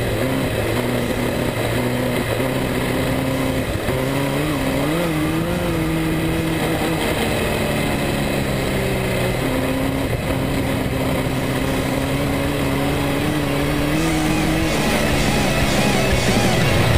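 Speedway midget race car's engine under load, heard from a camera mounted on the car, its pitch rising and falling as the car is driven around a dirt oval.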